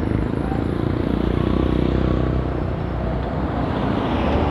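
Street traffic noise: a motor vehicle's engine running close by, swelling about a second in and easing off, over a steady low rumble of traffic.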